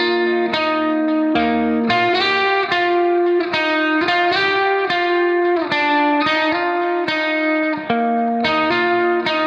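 Background instrumental music: a melody of pitched notes changing about twice a second at a steady level.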